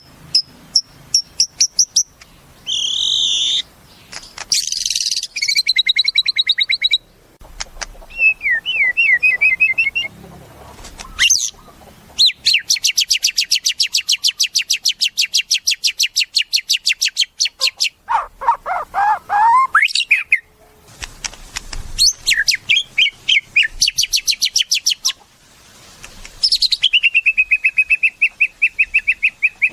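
White-rumped shama (murai batu) singing a varied song in quick successive phrases: clear whistled notes, a long rapid rattling trill, sliding notes, and a fast run of repeated notes near the end.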